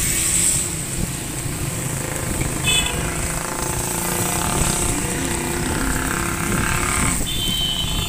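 Traffic on a rain-wet street: a steady rumble of motorcycle and car engines going past. A brief high tone sounds about three seconds in, and a longer high tone starts near the end.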